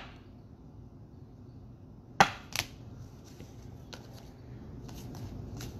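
Two sharp clicks about half a second apart, then a few faint ticks, from trading cards being handled and tapped.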